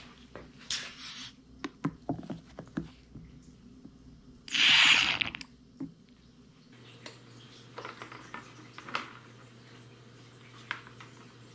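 Small clicks and knocks of hands working around a motorcycle's front brake master cylinder. About four and a half seconds in comes a loud sucking hiss, about a second long, as brake fluid is drawn out of the reservoir with a plastic squeeze bottle.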